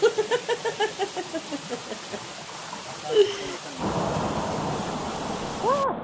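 Waterfall rushing as a steady roar of falling water that comes in suddenly about four seconds in. Before it, a person's voice is heard for about the first second and a half.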